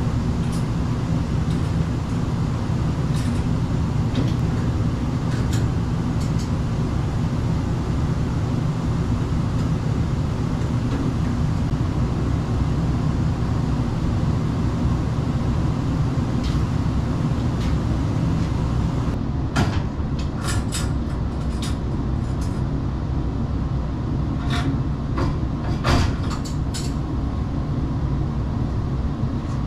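Steady low mechanical hum, like running air-handling machinery, with scattered sharp clicks and taps of hand tools on the furnace's sheet metal and parts. The clicks come closer together about two-thirds of the way through.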